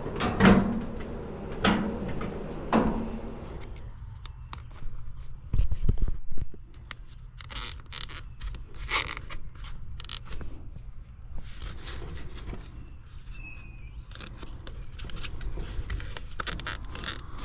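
Clicks, scrapes and knocks of hands working with tools and fittings, with a louder clatter about six seconds in, over a steady low hum.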